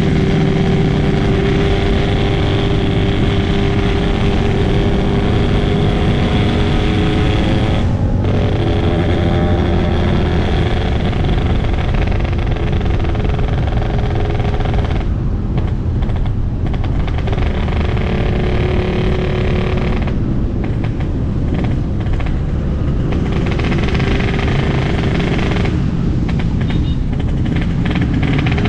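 Yamaha RX-King 135cc two-stroke single-cylinder engine running hard while being ridden, its exhaust tuned for the raspy "ngorok" note. The throttle eases off briefly about 8 seconds in and again several times later, the note thinning each time before picking back up.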